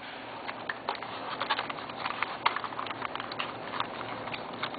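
Irregular light clicks and rustling from handling small hardware: bolts, nuts and washers being picked out for assembly.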